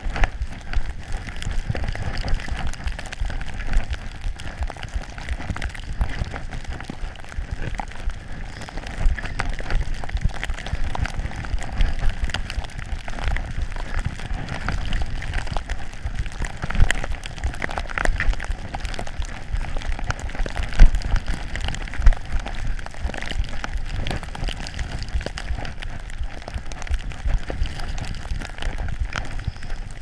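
Skis running over snow, heard from a GoPro Hero3 Black: a steady crackling rush with many small knocks and a strong low rumble.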